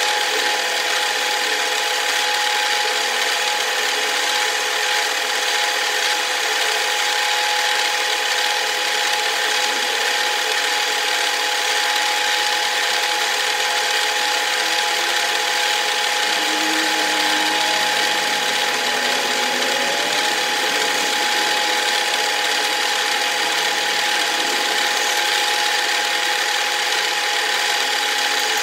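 Large metal lathe running steadily, with a steady gear whine over a continuous hiss.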